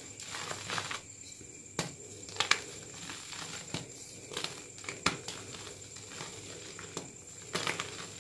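Plain gym chalk blocks crushed and crumbled by hand: dry crunching and crumbling, with several sharp snaps as pieces break, the loudest about two and a half seconds in and another about five seconds in.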